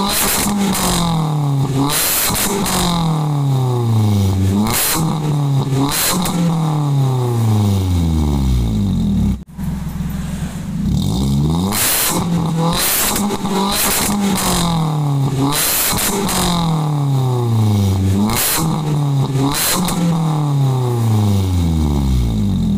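Toyota Avanza four-cylinder engine revved again and again through a stainless 4-2 header, resonator and muffler, heard at the tailpipe with a crisp, dry note. Each blip rises sharply and the revs fall back slowly, with a short break about halfway through.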